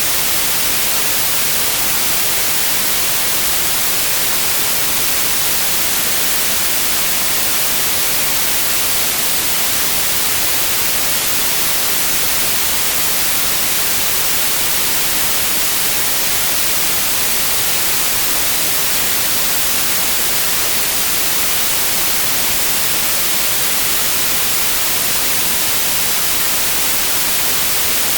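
Steady synthetic white noise, an even hiss with no change in level or texture.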